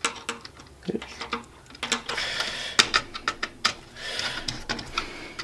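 Small screwdriver working a screw-terminal connector on a circuit board to clamp a power wire: scattered light clicks and ticks of the tool and terminal, with scraping and rustling of the wires being handled, heaviest about two seconds in and again near the end.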